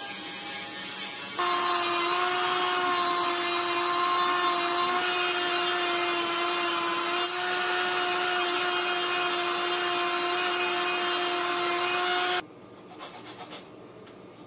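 Handheld rotary tool (Dremel) with a small sanding drum grinding the teeth off a 3D printed plastic gear: a steady high motor whine over a gritty hiss, louder from about a second and a half in, cutting off sharply near the end. A few faint scraping strokes of a hand file on the plastic follow.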